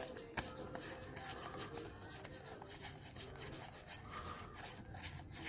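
Pokémon trading cards being thumbed off one stack and slid onto another in the hands: a quick, irregular run of soft card-on-card slides and flicks.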